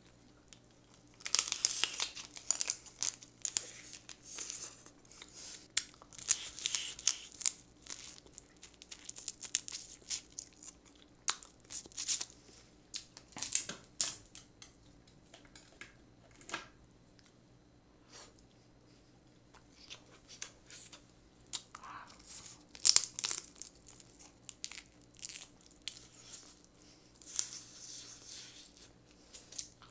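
Steamed swimming crabs (kkotge) being broken apart and shelled by hand: shell and legs cracking and crackling in irregular bursts, with snips of kitchen scissors and crunchy chewing. There is a quieter pause in the middle.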